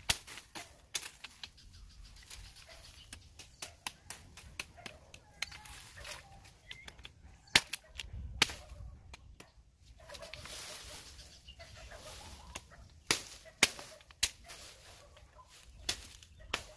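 Machete chopping and trimming a forked wooden branch: irregular sharp chops on the wood, with a few much louder strikes.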